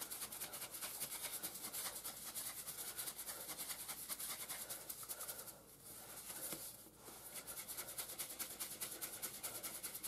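Dry breadcrumbs mixed with granulated garlic and parsley being shaken in a lidded plastic container: a faint, rhythmic swishing rattle at about four to five shakes a second, pausing briefly twice past the middle.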